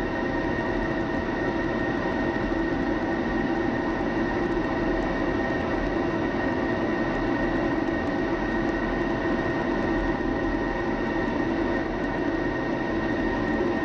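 Jet fighter's engine heard from inside the cockpit while taxiing: a steady rumble with a constant high whine.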